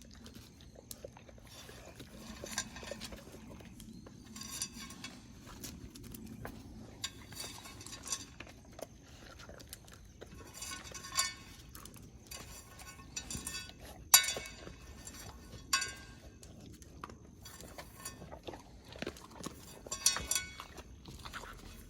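A dog eating, with scattered crunches and clinks at irregular intervals and one sharper click about 14 seconds in.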